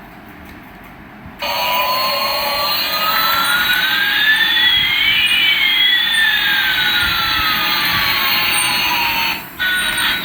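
Electronic jet-engine sound effect from a toy airliner: a steady hiss with one tone rising and another falling, crossing halfway through, starting about a second and a half in and cutting off suddenly near the end.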